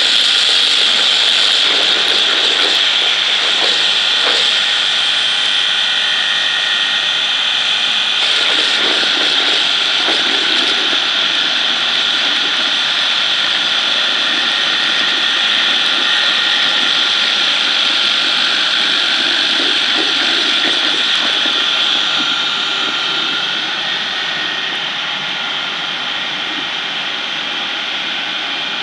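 Electric chili paste grinder (a colloid mill driven by an electric motor) running steadily while it grinds chili peppers into paste: a loud, even high whine and hiss that gets a little quieter in the last quarter.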